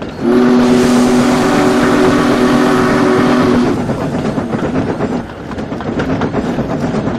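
A steam train's whistle blows one steady chord for about three seconds, then stops, leaving the rattling noise of the train running past.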